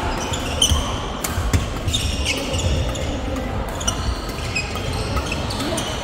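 Badminton doubles rally: rackets striking the shuttlecock in sharp hits and court shoes squeaking in short chirps on the hall floor, over the background hum of a busy sports hall.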